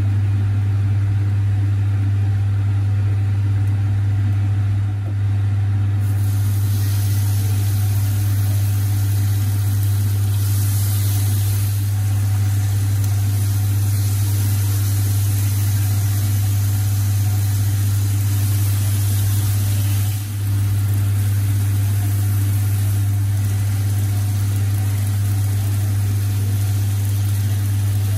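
A loud, steady low hum runs underneath bacon sizzling on an electric teppanyaki griddle. The sizzle starts about six seconds in as the strips go onto the hot plate and grows louder a few seconds later.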